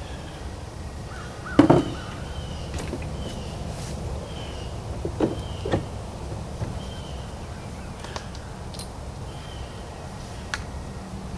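A few sharp knocks and clanks of handling metal parts, the loudest about two seconds in and two more a little past the middle, with a bird calling in short repeated notes in the background.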